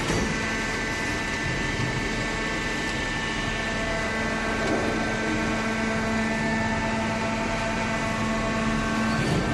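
Hydraulic baling press running: a steady mechanical hum from its motor and hydraulic pump, with several held tones over a noisy bed.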